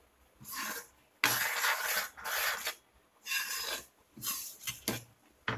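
A spatula scraping and stirring thick kidney-bean gravy in a frying pan: about five rasping strokes, then a few short knocks near the end.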